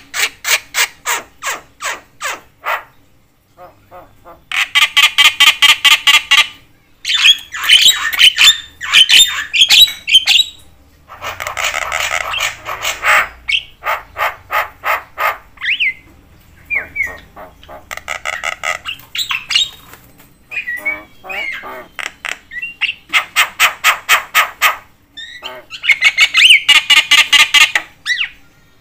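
Javan myna (jalak kebo) calling without pause: long, loud runs of rapid, harsh, grating notes, several a second, broken by short gaps and a few brief whistles.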